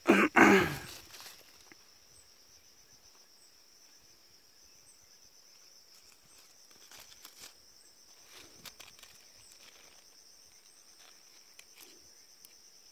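Insects chirring steadily in a high, faintly pulsing drone, with a few faint footsteps scattered through it; a brief loud noise comes right at the start.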